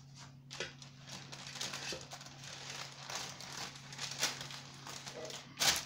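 Baking paper crinkling under a cake as it is turned, mixed with a knife scraping chocolate frosting onto the cake's side: a continuous run of scratchy, crackly strokes with a louder crackle near the end.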